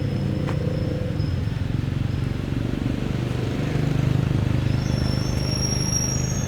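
A steady low engine drone, with thin high tones coming in near the end.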